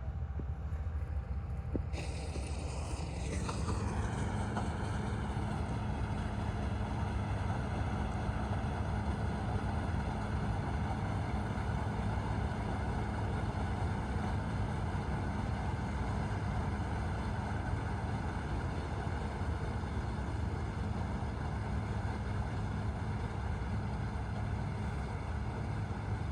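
Combine harvester's engine running with a steady low hum; about two seconds in the harvester's machinery is engaged and a pitched whine joins, shifting in pitch for a second or so before settling into a steady multi-toned running sound.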